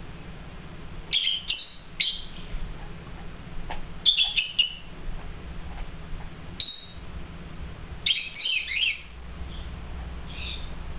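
Pair of lovebirds chirping: short clusters of sharp, high calls every second or two, with the busiest flurry about eight seconds in.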